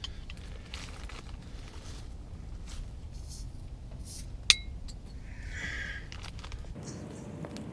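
Glass beer bottle being handled, with one sharp clink and a short ring about four and a half seconds in, and a few softer rustles and taps, over a low steady rumble.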